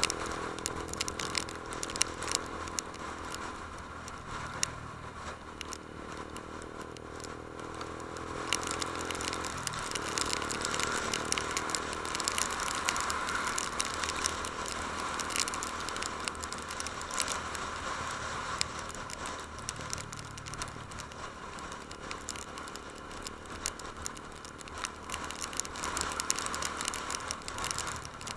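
Honda CB150 Invicta's single-cylinder engine running steadily while riding, with frequent crackling clicks over it. The engine note changes about ten seconds in.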